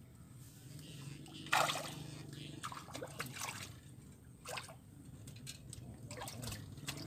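Water splashing and dripping in short irregular bursts, the loudest about one and a half seconds in, over a low steady hum.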